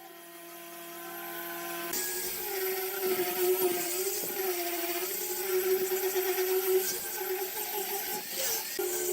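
Electric power tool running, its motor tone dipping and recovering several times.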